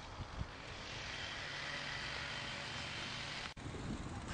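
Steady outdoor background noise on a camcorder microphone, with a soft low thump about half a second in.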